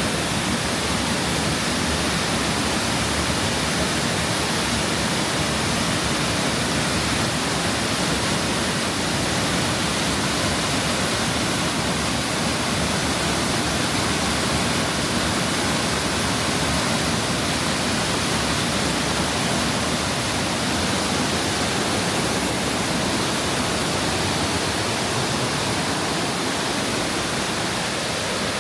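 A large waterfall roaring steadily, close by: a dense, even rush of falling water that never lets up.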